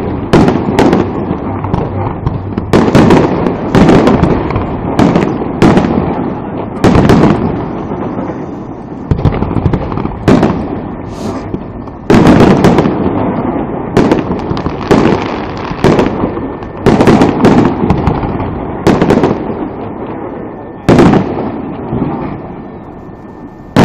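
Aerial fireworks shells bursting overhead: a string of loud, sharp bangs coming about once a second at irregular spacing, with a rumbling echo between them.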